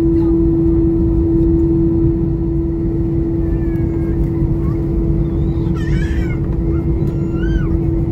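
Airbus A321 cabin noise while taxiing: a steady low rumble with one constant hum. Over it come a few short, wavering high-pitched cries, the clearest about six and seven and a half seconds in.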